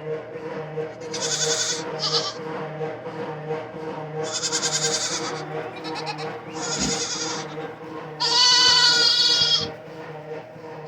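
Goats bleating: about five separate calls, the longest and loudest near the end, over a steady low hum.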